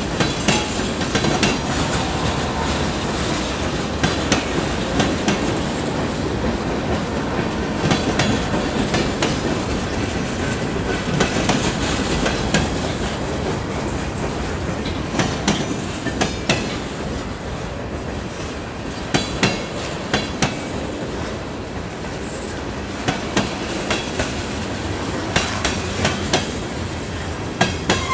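Freight cars of a passing train rolling by: a steady rumble of steel wheels on rail, broken by sharp clicks that come in quick groups as the wheel sets cross rail joints.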